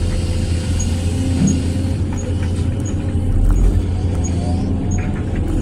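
Hydraulic excavator's diesel engine running steadily, heard from inside the cab, with the pitch of its hydraulics rising and falling as the boom and bucket move dirt.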